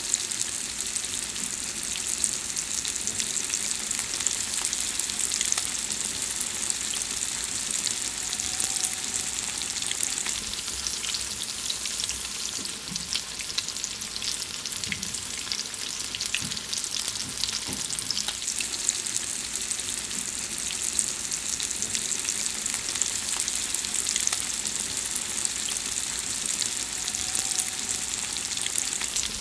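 Food frying, a steady sizzle with dense, fine crackling throughout.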